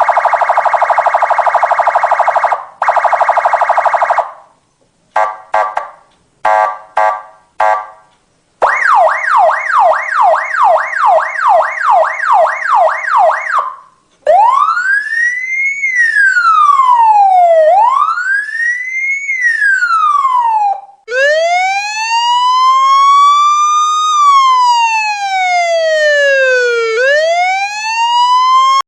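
Electronic police siren cycling through its tones: a rasping horn blast with a brief break, a few short blips, a fast yelp of falling sweeps about two and a half per second, then a slow wail rising and falling every few seconds, switching near the end to a second, slower wail.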